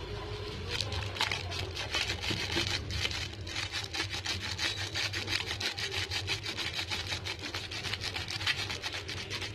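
Spice powder shaken out of a plastic spice packet held over a bowl: a fast, even rasping rattle of about seven strokes a second, starting about a second in.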